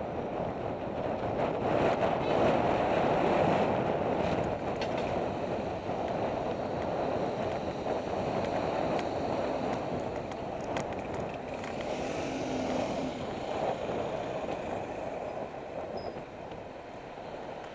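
Riding noise from a bicycle-mounted camera in city traffic: wind rushing over the microphone mixed with passing motor traffic, loudest a couple of seconds in and easing off toward the end, with a few light clicks.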